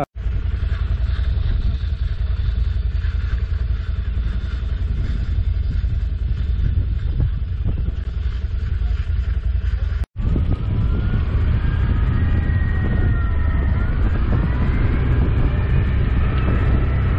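Can-Am ATV engines running with a steady low rumble. After a cut about ten seconds in, the quads are riding and the engine pitch rises and falls.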